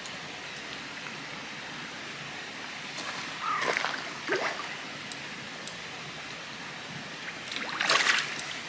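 A small hooked mirror carp splashing and thrashing at the surface close to the bank as it is played in: two bursts of splashing, one about three and a half seconds in and another near the end.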